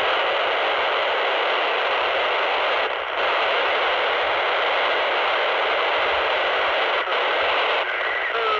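Steady FM receiver hiss from a PNI Escort HP 82 handheld 27 MHz CB radio with its squelch open, dropping out briefly about three and seven seconds in as it is stepped between channels. Faint warbling tones come through near the end.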